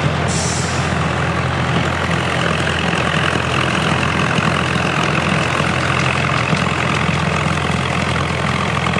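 Kenworth tipper truck's diesel engine running steadily at low speed as it drives slowly past, with a short hiss about a third of a second in.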